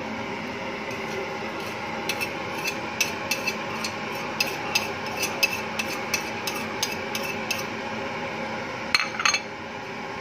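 A metal spoon clinks and scrapes against a ceramic plate and a metal pan as grated cheese is added to a simmering milk sauce and stirred. It comes as a run of light, irregular taps, two or three a second, over a steady hiss, with a louder cluster of clinks near the end.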